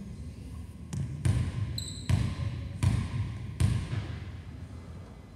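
Basketball being dribbled on the court floor: five bounces between about one and four seconds in, the last three evenly spaced, each with a short ring after it. There is a brief high squeak just before two seconds in.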